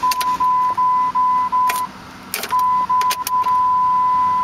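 A high, steady electronic warning chime from the Jeep Grand Cherokee's dash, pulsing about two and a half times a second with the engine not running. It breaks off for a moment a little under two seconds in, then resumes, with several sharp clicks along the way.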